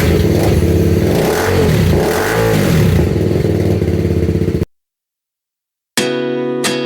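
BMW G310 RR's single-cylinder engine running loud through its exhaust, revved up and down a few times, then cut off suddenly about two-thirds in. After a short silence, strummed acoustic guitar music starts near the end.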